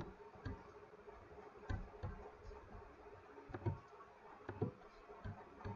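Faint, scattered clicks and soft thumps, about six of them at irregular intervals, from a computer mouse being clicked and moved on the desk, over quiet room tone.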